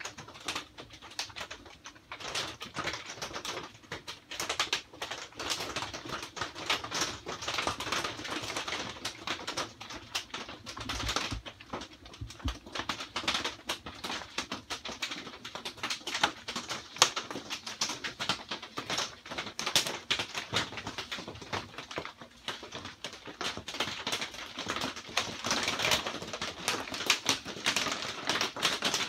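Rain falling on a greenhouse's corrugated plastic roof and walls: a dense, irregular run of fast drop ticks.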